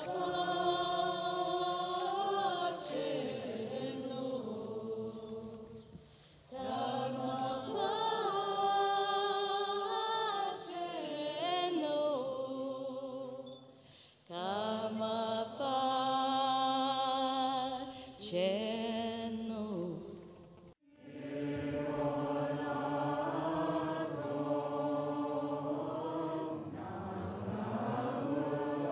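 Buddhist chant sung by voices in unison, in melodic phrases a few seconds long with short breaks between them. It cuts off abruptly about 21 seconds in, and the chanting resumes straight after.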